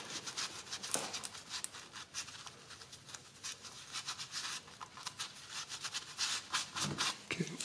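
Cloth shop rag rubbing and rustling as a gloved hand wipes ATF off the transmission case around the freshly tightened drain plug, in faint, irregular scratchy strokes.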